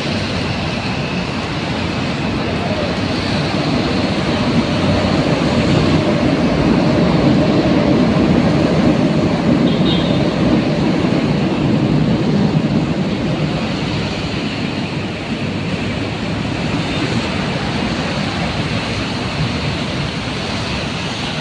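City street traffic: a steady rumble of engines and tyres on a wet road. It swells as a large vehicle passes close by in the middle.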